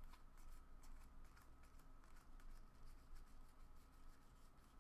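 Faint, irregular flicking and sliding of a stack of football trading cards being thumbed through by hand, one card pushed off the pile after another.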